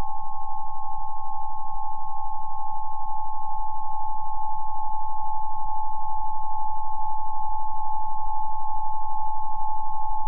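Two steady electronic pure tones sounding together, one a little higher than the other, held unchanged throughout with a fast, even pulsing, over a low hum.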